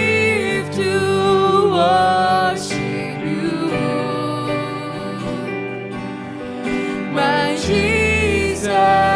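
Live worship music: keyboard accompaniment under a slow, held sung melody with wavering vibrato.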